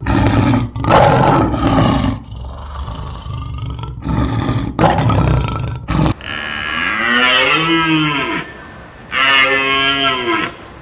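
Farm animal calling: a rough, noisy stretch with short breaks, then after a cut two drawn-out, wavering calls of about two seconds each, each rising then falling in pitch.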